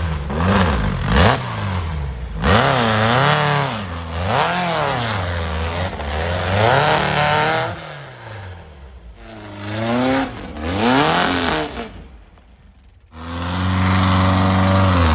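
Off-road buggy engine revving hard under load as it climbs a steep dirt hill, its pitch surging up and falling back again and again. After a short lull near the end it holds a steady, even tone.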